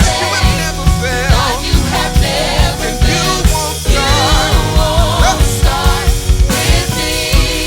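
Live worship band music with a steady beat: drums and bass under a wavering lead melody line.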